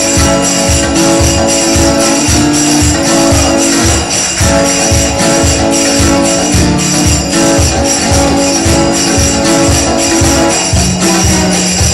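Live band music for bellydance: a steady low drum beat of about three strokes a second under sustained melodic tones, with constant metallic jingling like a tambourine.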